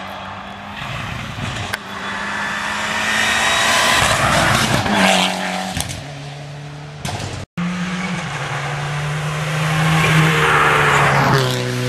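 Rally cars driven hard on a tarmac stage. One car's engine grows loud and then drops in pitch about five seconds in. After a brief dropout, a small hatchback rally car comes up with its engine climbing and stepping through gear changes near the end.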